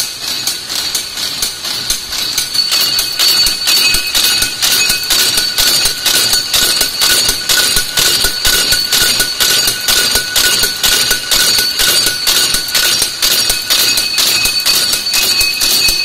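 Barbed wire making machines running: a rapid, regular clatter of knocks with a steady high whine over it.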